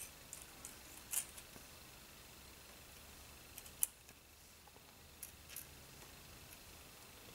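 Faint clicks and light taps of small plastic model-kit parts and a glue bottle being handled on a cutting mat: a few scattered ticks over a quiet room background, the sharpest near four seconds in.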